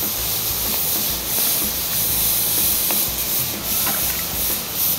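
A matrinxã splashing in shallow pond water as it is released by hand, over a steady loud hiss and low rumble.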